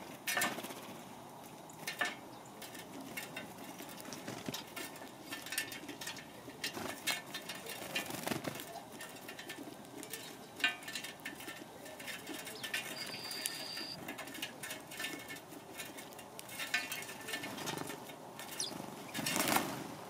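Wings of house sparrows and a red-bellied woodpecker fluttering as they land on and leave a metal seed feeder, with loud flurries near the start, twice more, and just before the end. Many short sharp ticks run through it, and there is one brief high steady whistle a little past the middle.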